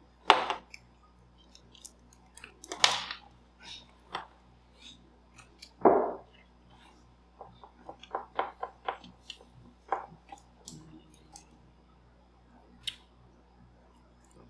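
Irregular tabletop handling noises: a few louder knocks in the first six seconds, then a quick run of small clicks, over a faint steady hum.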